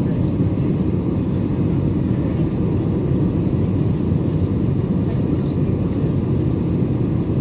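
Steady low rumble of an airliner's cabin noise, its jet engines and the rushing airflow heard from a window seat during the landing approach.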